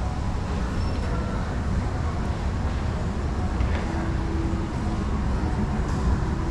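Steady low background rumble with no distinct events, of the kind heard from city traffic.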